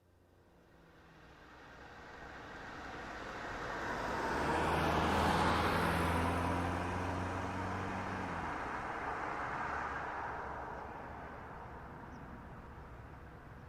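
A car driving past: engine hum and tyre noise swell over about five seconds, peak as it goes by, then fade slowly away.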